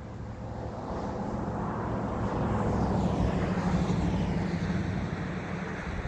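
A motor vehicle passing by: a low rumble that swells over a few seconds and then eases off, its whine falling in pitch as it goes past.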